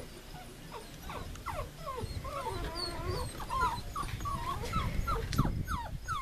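A litter of puppies whining and whimpering together: many short, high, sliding cries overlapping one another.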